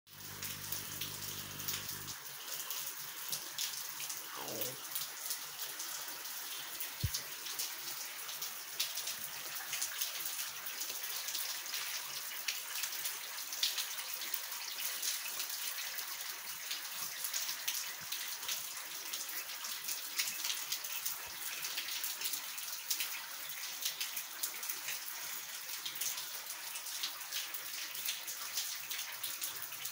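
Steady rain falling, with many individual drops ticking sharply on hard, wet surfaces.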